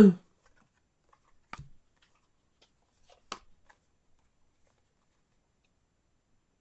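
Trading cards being handled, with two faint, sharp clicks, one about a second and a half in and one about three seconds in, and otherwise near silence.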